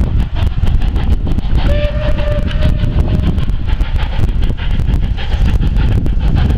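Pm36-2 steam locomotive hauling its train of carriages away, a heavy low rumble of the train on the track. About two seconds in, the engine's steam whistle sounds once for roughly a second and a half.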